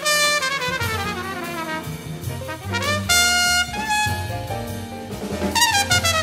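Jazz quintet recording of saxophone, trumpet, piano, double bass and drums. A horn plays quick runs that sweep down and back up, holds a few long notes about halfway through, then starts another run near the end, over bass and drums.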